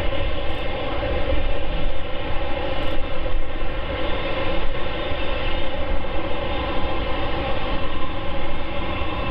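Boeing 747-8F freighter's GE jet engines running steadily while the aircraft stands still: a loud, even whine of many tones over a low rumble.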